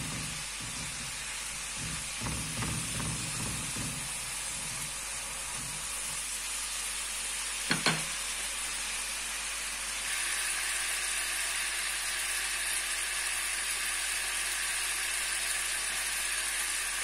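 Orange-juice sauce with garlic, ham and cloves bubbling and sizzling in a non-stick frying pan, left to boil. For the first few seconds a spatula scrapes through it in repeated strokes, and a sharp double knock comes about eight seconds in.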